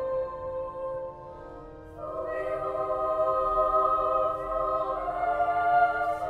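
A choir singing slow, sustained notes in several parts; it thins to a quieter held chord about a second in, then swells back to full voice at about two seconds.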